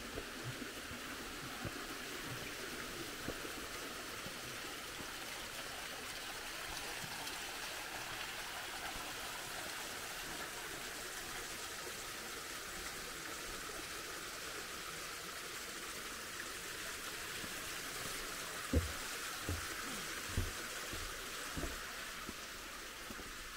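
Running water flowing steadily, with a few soft thumps near the end.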